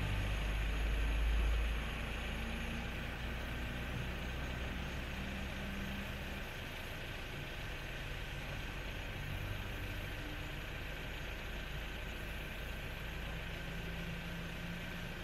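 Heavy diesel road-train truck engine running steadily, a low engine note that eases slightly about two seconds in.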